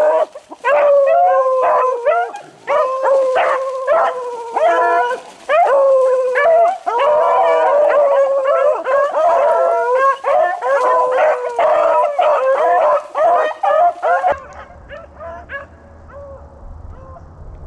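A pack of beagles baying as they run a rabbit, several drawn-out howls overlapping almost without a break. About 14 seconds in it cuts abruptly to fainter baying over a low rumble.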